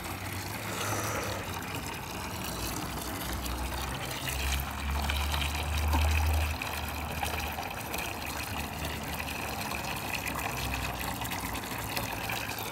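Water running steadily from an open tap, with a low rumble underneath.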